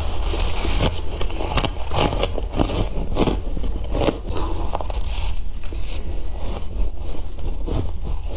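Close-up crunching and squeaking of freezer frost being bitten and chewed, a fast irregular run of crisp crunches several times a second. A steady low hum sits underneath.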